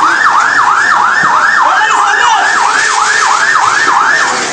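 Emergency vehicle siren on a fast yelp, about three sweeps a second, over a steady hiss of street noise; the siren stops about four seconds in.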